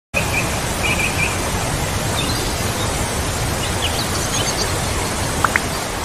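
Steady rushing of a waterfall, an even, unbroken roar of falling water, with a few faint bird chirps now and then.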